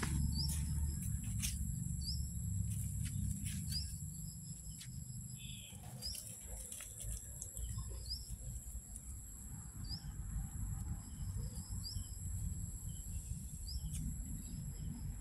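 Rural outdoor ambience: insects keep up a steady high drone, and a bird gives a short rising chirp every second or two over a low rumble.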